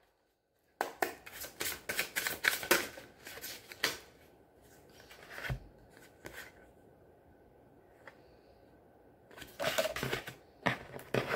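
A tarot deck being shuffled by hand: a quick run of crisp card clicks and slaps for a few seconds, then a quieter stretch, and the shuffling picks up again near the end.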